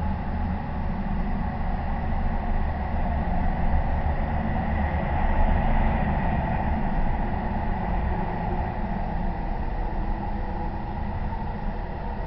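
Steady low rumble and hiss of outdoor night ambience picked up by a security camera's microphone, with a few faint steady tones through it. It swells a little about five seconds in.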